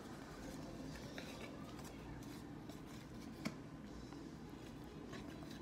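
Faint rustle of baseball cards being thumbed one by one from one hand to the other, with light ticks and one sharper click about three and a half seconds in.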